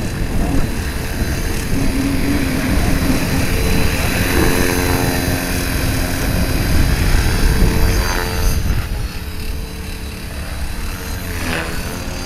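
Radio-controlled helicopter flying, its rotor hum steady with the pitch shifting and swelling as it is manoeuvred, loudest in the first two-thirds and easing off near the end.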